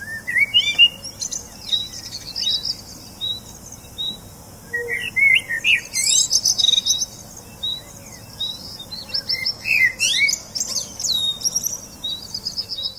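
Several birds chirping and calling together, with one bird repeating a short high note every half second to a second among quicker warbling calls.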